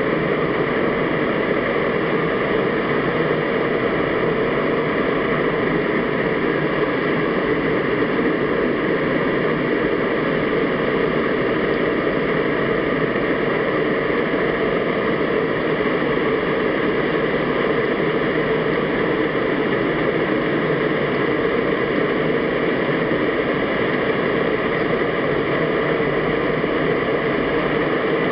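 Steady, even underwater noise picked up by a camera in an underwater housing, with a few faint steady hum-like tones running through it and no bubble bursts or other events.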